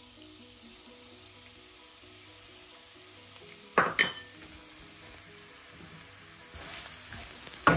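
Chopped red onion and garlic sizzling in annatto oil in a nonstick pan, with two sharp knocks about four seconds in. The sizzling gets louder near the end.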